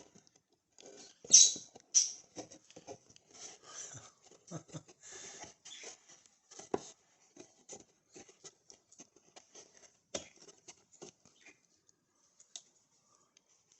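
Something being handled and set back in place: scattered rustling and scratching with light taps and clicks, loudest in the first two seconds, with single knocks near the middle and thinning out near the end.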